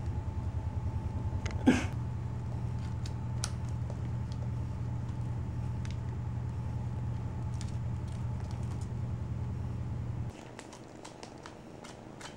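Persian kitten purring close by, a fast, even low rumble that stops about ten seconds in. A sharp click about two seconds in and light ticks from kittens playing with their toys.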